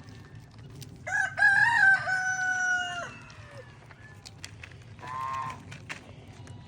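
A rooster crowing once: one long crow of about two and a half seconds that drops in pitch as it ends. A shorter call follows about two seconds later.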